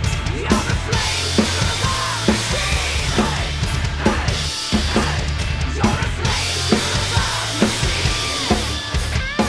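Heavy metal drum kit played along with the band's recorded song: a snare strike about once a second over a dense, low kick drum and bass, with a constant wash of cymbals.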